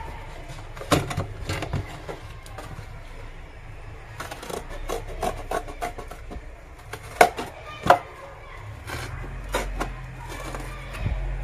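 Scissors cutting through a paperboard milk carton: irregular snips and crackles of the board, with two sharper snaps about seven and eight seconds in.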